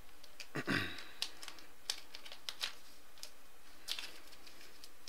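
Trading cards being handled: a series of light clicks and taps as cards are shuffled and slid against each other, with one louder brushing thump just under a second in.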